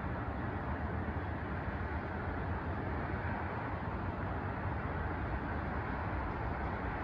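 Steady rumble of city road traffic, an even wash of noise without distinct events.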